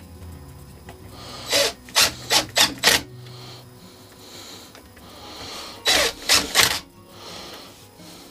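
Hand tool driving screws into the cover of a Mercury Mark 10 outboard motor: a quick run of five short rasping strokes, then three more a few seconds later.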